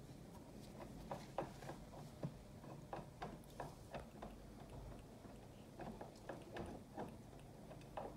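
Light, irregular clicks and taps as a kitten paws at and bites a small toy on the rim of a wooden crate, coming in clusters of a few a second.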